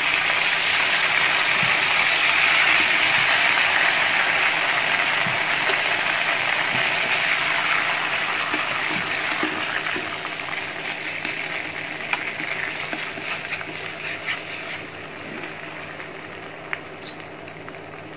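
Chili sauce sizzling as it hits hot oil and fried garlic in a frying pan, loud at first and dying down steadily through the second half. A few light taps, chopsticks against the pan, come near the end.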